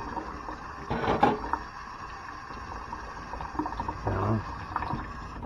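Stainless steel hose clamps being handled during cleaning: small knocks and rattles, loudest about a second in, over a steady hiss.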